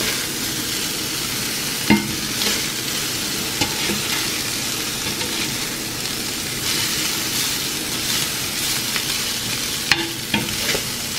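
Chicken and beef strips sizzling on a hot flat griddle pan while being tossed and stirred with a wooden spoon and a metal slotted spatula. Sharp clacks of the utensils striking the pan come about two seconds in and again near the end.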